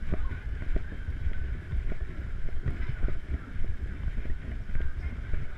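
Handling noise from a handheld action camera carried while walking: an uneven low rumble with many short muffled thumps.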